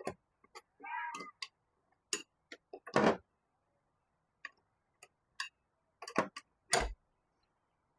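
Scattered metal clicks and clinks of hand tools working bolts and linkage on a car's transmission, irregular, with two louder knocks about three seconds in and near the end. The audio cuts to dead silence between the sounds.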